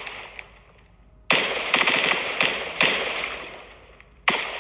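Aerial fireworks shells bursting: a sudden loud bang about a second in, then sharp pops and a dense crackle that fades away over a few seconds, and another loud burst near the end.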